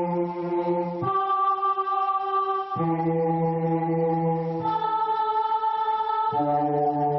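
Music: slow, choir-like held chords, each sustained for one to two seconds before moving to the next.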